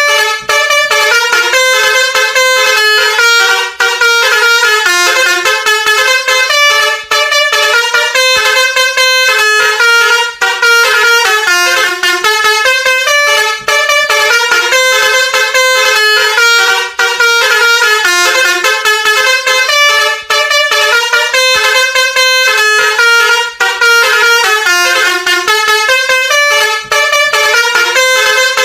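Basuri V3 multi-tone telolet horn playing a melody of quick stepping notes. The same loud phrase loops about every three seconds, with a brief break between repeats.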